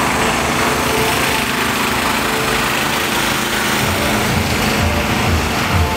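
An engine running steadily, with a dense even noise over it. A thumping music beat starts to come through near the end.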